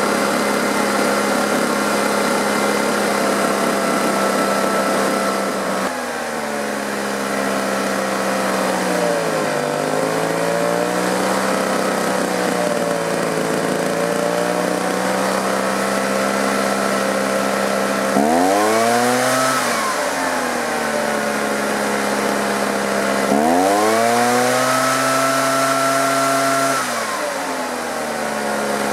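Husqvarna 145BT backpack blower's two-stroke engine idling while its carburetor is adjusted. Its speed sags and recovers, then it is revved up twice: a short rev about 18 seconds in and a longer one near 23 seconds, held for about three seconds before dropping back to idle.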